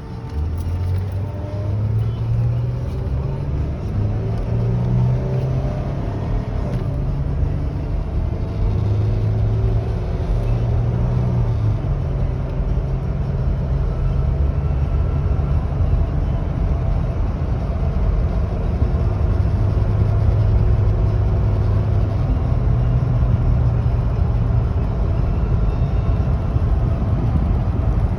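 Road vehicle engine running while driving, its pitch rising and falling as it speeds up and slows, over steady road noise.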